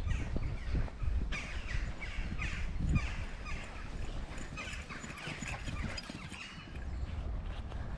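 Birds chirping and calling in many short notes, over low thumps and rumble that are heavier in the first few seconds.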